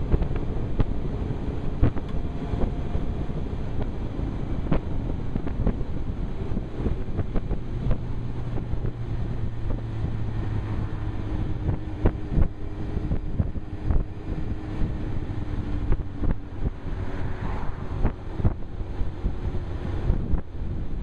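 Wind buffeting a helmet-mounted microphone on a moving motorcycle, with many gusts and thumps over a loud steady rumble. The Suzuki GSX-R 1000's inline-four engine runs faintly underneath, its low note holding steady for a few seconds about a third of the way in.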